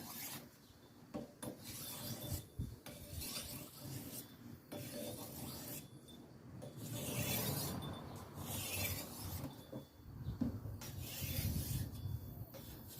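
Machete blade being sharpened by hand on an oiled coarse-grit sharpening stone: a stroke of steel against stone every second or two, unevenly spaced.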